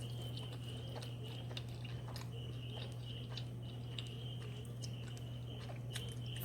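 Quiet chewing of noodles, with scattered small mouth clicks, over a steady low hum.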